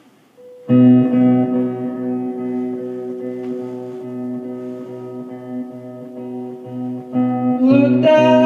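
Instrumental music: a single held chord that sustains steadily over a low part pulsing about three times a second, stepping up in pitch near the end.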